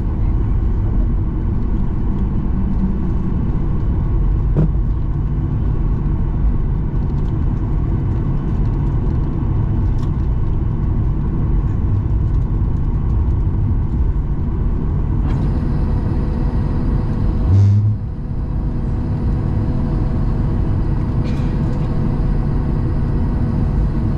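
Steady low rumble inside the cabin of a Boeing 737-800 rolling on the ground after landing: its CFM56 engines and the airframe running. A faint high whine starts about two-thirds of the way through, and a short heavy thump comes about three-quarters through, after which the rumble drops slightly.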